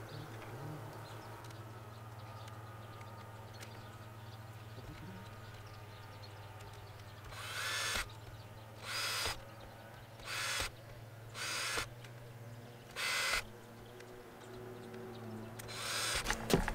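Cordless drill run in about six short bursts, each under a second, starting about seven seconds in: drilling a row of holes through plastic pipe for cable ties.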